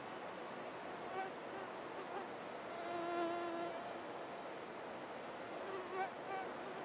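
Flying insects buzzing. One passes close with a clear buzz lasting under a second about three seconds in, and shorter buzzes come and go over a steady hiss.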